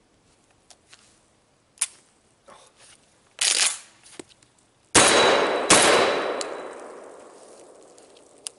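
Shotgun fired twice in quick succession, under a second apart, about five seconds in, the blasts echoing and dying away over the next few seconds. Before the shots come a few light clicks and a brief rattle of the gun being handled.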